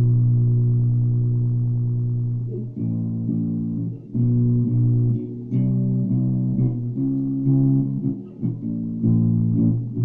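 Ibanez Jumpstart four-string electric bass being played: one long low note held and slowly fading, then from about two and a half seconds in a run of plucked notes in short phrases. The sound is thin, recorded on a phone.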